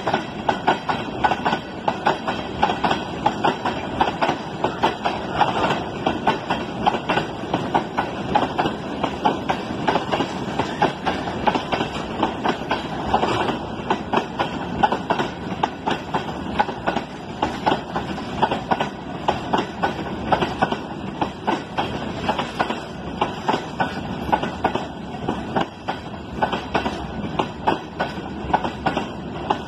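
Freight train of tank wagons rolling past close by: steel wheels clacking over the rail joints in a continuous string of sharp knocks, over a steady rumble.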